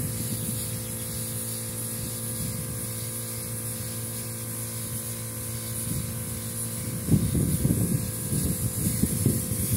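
Air spray gun hissing steadily as it sprays a first coat of sanding sealer, over a steady low hum from the air compressor. Irregular low rumbling joins about seven seconds in.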